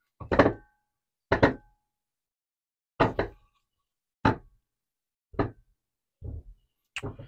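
A wooden board knocking against the workbench and the metal vise as it is handled. About seven separate knocks come roughly a second apart, the first ones with a short ring.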